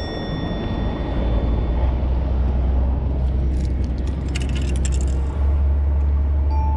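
Wind buffeting an action camera's microphone: a heavy, steady low rumble. Around the middle come a few light clicks and rattles of fishing tackle being handled.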